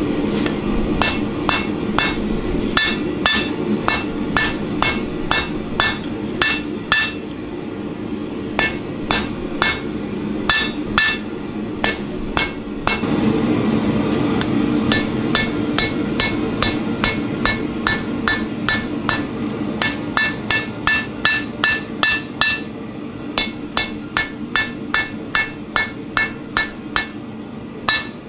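Hand hammer striking a red-hot damascus steel knife blade on an anvil, the anvil ringing at each blow, in runs of about three to four blows a second with short pauses, over a steady low rumble.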